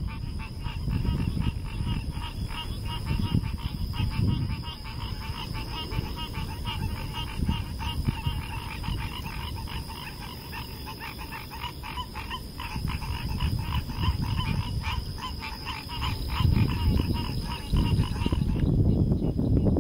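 A chorus of small wildlife calling in rapid, evenly spaced pulses, several a second, which stops about two seconds before the end. Under it, a low, swelling rumble of wind on the microphone.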